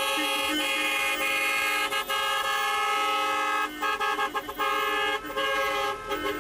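Several car horns held down together in celebratory wedding-convoy honking: overlapping steady tones at several pitches, with short breaks where horns drop out for a moment.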